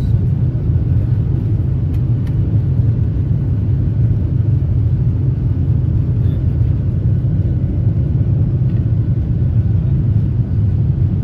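Steady low rumble inside a jet airliner's cabin as the plane moves along the ground with its engines running.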